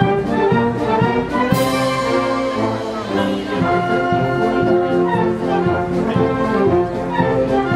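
Wind band playing a march: clarinets, saxophones and brass in full, with a crash about a second and a half in.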